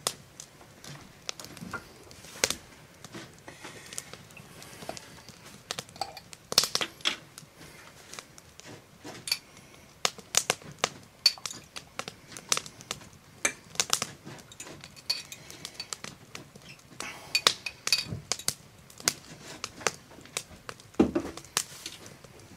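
A metal fork clinking and scraping in a glass jar as sliced jalapeños are fished out, with many irregular light clicks and taps.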